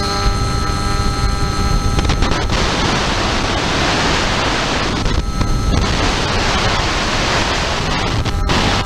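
Onboard audio of an FPV aircraft in flight: wind rushing over the microphone, with the steady whine of its motor heard at the start and again briefly after about five seconds. The rushing noise swamps the whine between about two and five seconds.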